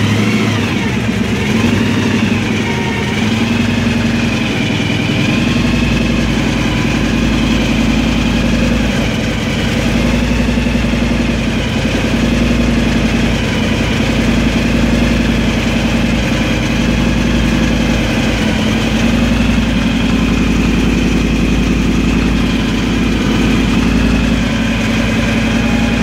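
Weiand-supercharged big-block Chevrolet V8 idling. The idle speed wavers for the first few seconds, then holds steady.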